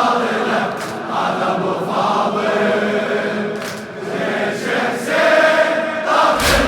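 A congregation chanting a Shia Muharram lament (latmiyya) together, many voices in unison like a choir. Near the end comes a sudden sharp thump with a low rumble after it.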